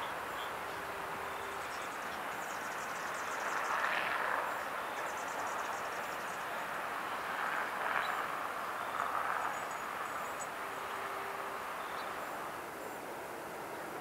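Steady outdoor waterside ambience, a hiss-like wash of background noise that swells a few times, with short bursts of faint, rapid, high ticking in the first few seconds.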